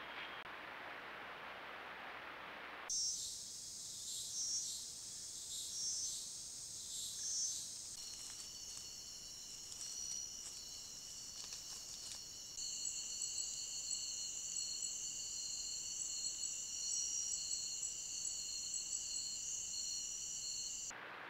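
A soft, steady hiss for about three seconds, then a night-time rainforest insect chorus: high, shrill trills pulsing about once a second at first, then running steady in several layered pitches. The mix of calls changes abruptly twice.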